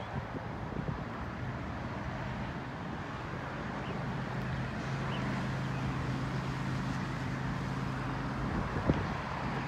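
A steady engine hum that grows stronger about five seconds in, over outdoor background noise and wind on the microphone.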